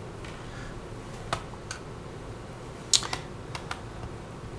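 Small screwdriver undoing the battery screws in a Dell XPS 15z laptop: a scatter of light metal clicks and ticks, the sharpest about a second in and again about three seconds in.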